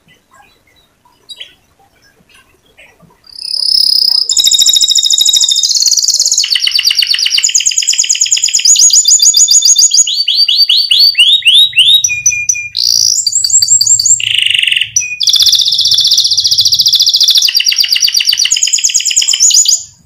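Domestic canary singing a continuous rolling song: series of rapid trills, each held for a second or two before switching to another, starting about three seconds in.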